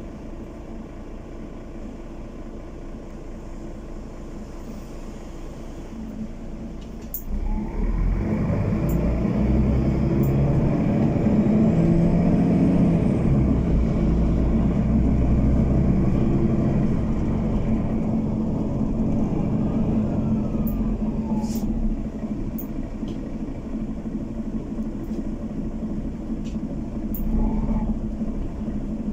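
City bus heard from inside the passenger cabin: a low rumble while it stands, then about seven seconds in the engine picks up and the bus pulls away, running louder and rising as it accelerates. It eases off a little past the middle and builds again near the end, with a few short rattles and clicks from the cabin.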